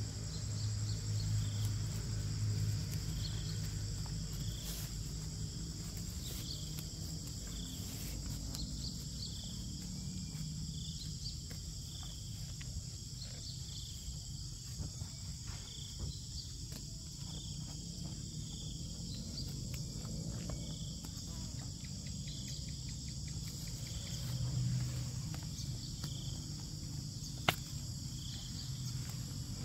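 Outdoor insect chorus: a steady high shrilling with a short chirp repeating about every second and a half. There is a low rumble at times and a single sharp click near the end.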